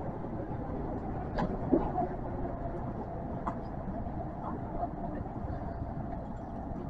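Kintetsu electric train running through a subway tunnel, heard from inside the car: a steady rumble of wheels on rail, with sharp clicks about one and a half seconds in and again about three and a half seconds in.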